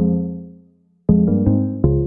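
Background music on a piano-like keyboard: struck notes that ring and fade, a brief silent break about halfway, then several notes in quicker succession.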